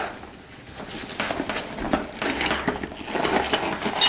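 Hands rummaging through a soft fabric tool bag of oscillating multi-tool accessories: rustling with many light clicks and knocks of small parts, busier after about a second.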